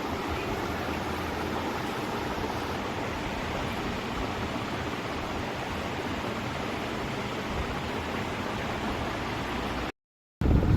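A steady, even rushing noise with no rhythm or tone in it, which cuts off suddenly near the end.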